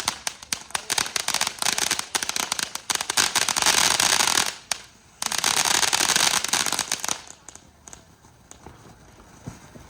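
Firecrackers or crackling fireworks going off in a dense, rapid run of sharp pops and crackles. There is a short break about five seconds in, and the sound dies away after about seven seconds.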